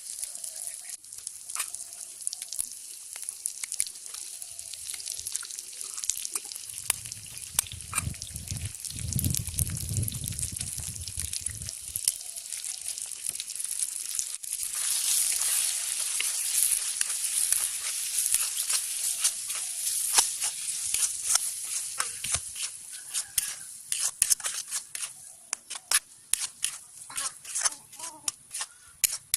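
Cooking in a pan: irregular clicks and taps of a utensil against the pan, with a frying sizzle that grows denser about halfway through.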